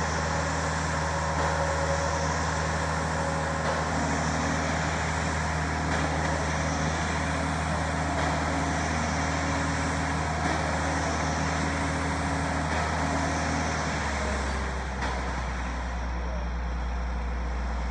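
Rear-discharge concrete mixer truck's diesel engine running fast and steady while it turns the drum, mixing the integral colour into the load; about 14 seconds in the engine drops to a lower idle.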